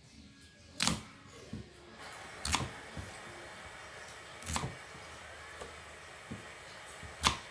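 Kitchen knife chopping through a peeled white radish onto a wooden chopping board: four sharp knocks about two seconds apart, with a few lighter taps between.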